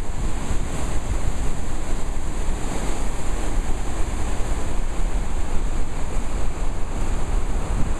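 Churning whitewater rushing close to the microphone as a steady, unbroken noise, with wind buffeting the mic.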